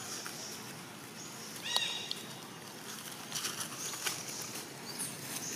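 Infant macaque giving one short, high-pitched cry about two seconds in, with faint rustling of dry leaf litter around it.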